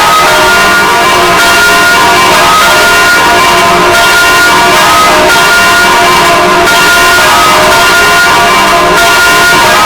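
Six swinging church bells ringing together in a full peal. Their strikes overlap into a continuous, loud, unbroken clangour of many pitches.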